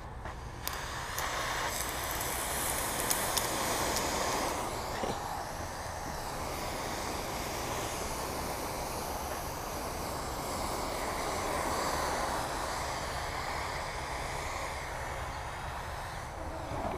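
Water spraying from a garden hose's spray nozzle onto a lawn: a steady hiss that swells and eases slowly.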